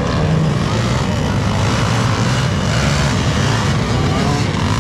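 Several motocross dirt bike engines running and revving on the track, blending into one steady, loud engine sound.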